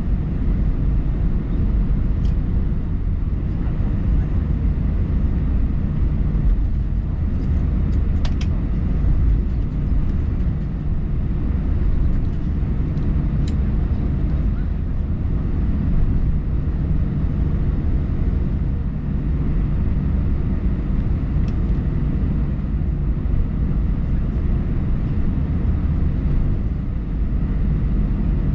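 Steady low rumble of an Airbus A319's jet engines and airframe heard inside the cabin, with a few faint clicks.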